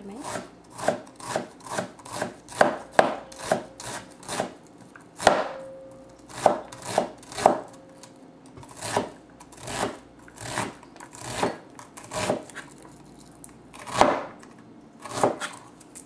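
Chef's knife dicing an onion on a plastic cutting board: crisp chopping strokes, two or three a second at first, slowing to single chops about a second apart in the second half.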